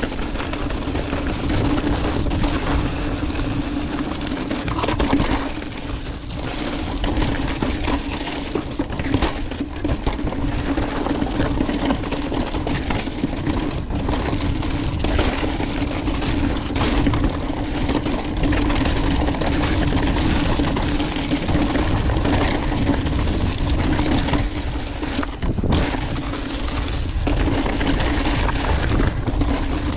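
Mountain bike rolling fast over a rocky trail: a steady rush of tyre and wind noise, broken by frequent sharp knocks and rattles as the wheels hit rocks.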